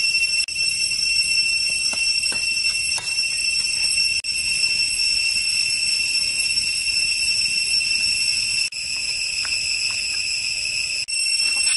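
Steady, high-pitched drone of insects, several shrill pitches held together. It breaks off for a moment a few times, with a few faint crackles from the wood fire underneath.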